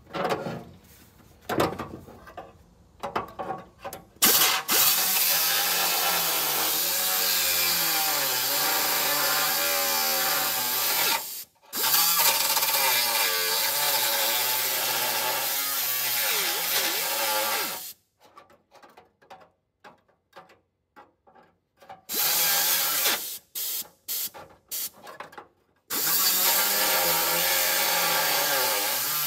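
Air-powered cut-off tool cutting through a steel door crash bar inside a car door, its pitch wavering as it bites. It runs in two long stretches, then a string of short on-off bursts, then runs steadily again near the end, after a few light handling clinks at the start.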